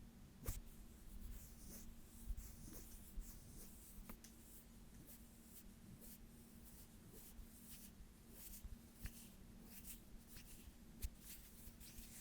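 Soft hand sounds close to the microphone: skin brushing and rubbing, with scattered light clicks and taps, over a faint steady hum.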